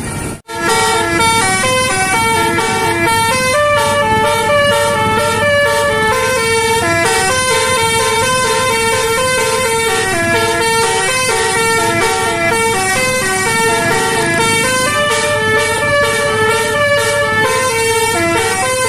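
A multi-tone bus air horn, a 'telolet' horn, plays a quick melody of stepping notes with several tones sounding together. It cuts out briefly just after the start, then plays on without a break.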